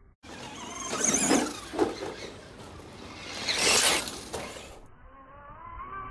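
Battery-electric RC trucks (Tamiya Brat and Lunchbox) driving hard over loose dirt, motors whining and tyres churning soil, swelling loud twice as they pass close, about a second in and again just before four seconds, with a sharp knock just under two seconds in.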